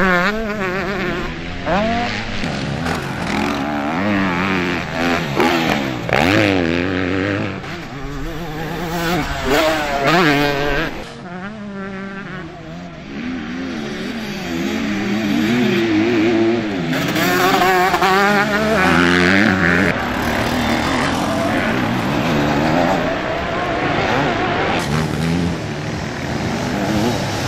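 Several motocross bikes racing, their engines revving up and down over and over as they pass. The engine notes overlap, with a quieter lull about halfway through.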